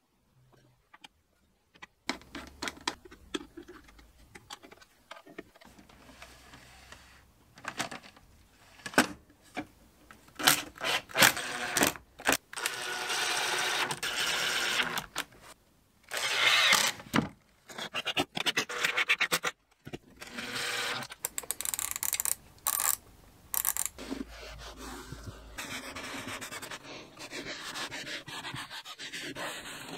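Hand-work sounds in quick succession: scrapes, taps and clicks as small brass butt hinges are screwed onto a plywood panel. From about 24 s, a steadier scraping as a clothes iron slides over cherry veneer, pressing it down.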